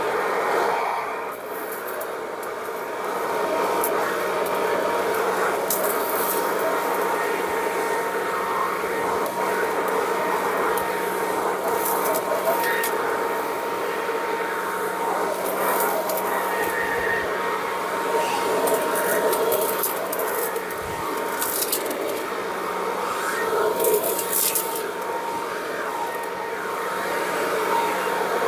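A BLACK+DECKER BV3600 12-amp corded electric blower-vac running steadily in vacuum-mulcher mode, with its collection bag on. It makes a steady motor whine with one constant high tone. Occasional crackles come through as debris is sucked off wet ground and mulched.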